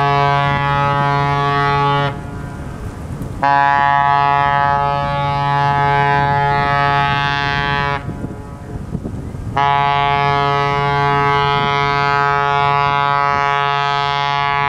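The cruise ship Nautica's horn sounds long, steady blasts on one low note as she leaves port. One blast ends about two seconds in, a second lasts about four and a half seconds, and a third starts shortly after and is still sounding at the end.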